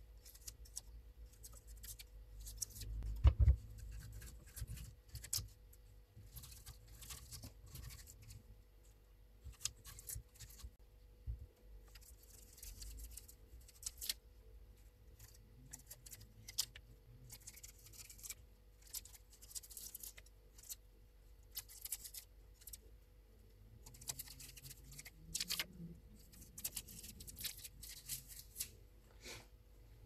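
A knife paring the skin off a raw sweet potato: a run of quiet, short, irregular scraping strokes, with one louder thump about three seconds in.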